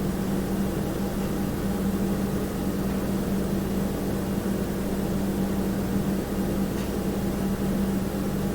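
Steady household room tone: a constant low hum over a faint hiss, with no distinct events.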